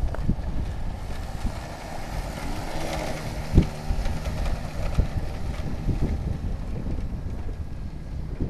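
Small quad ATV engine running as it rides around on dirt, mixed with wind rumbling on the microphone and a couple of low thumps.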